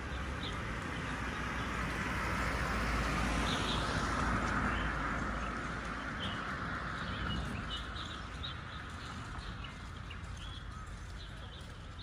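Small birds chirping now and then over a broad rushing outdoor noise that swells to its loudest about four seconds in and then slowly fades.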